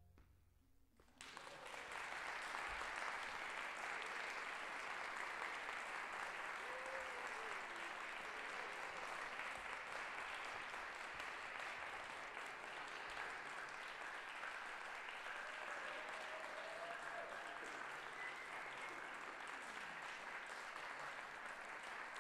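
Audience applause that starts suddenly about a second in, after a moment of near silence, and continues steadily at an even level.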